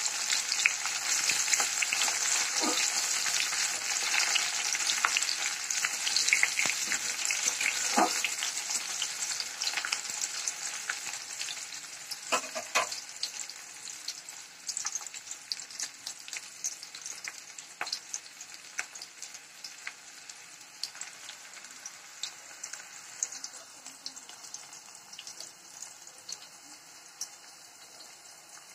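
Chopped onion sizzling in hot oil in a metal kadai, fried until lightly browned before the spices go in. A metal spatula scrapes and knocks against the pan while stirring in the first half, and the sizzle then settles to a quieter, steady frying.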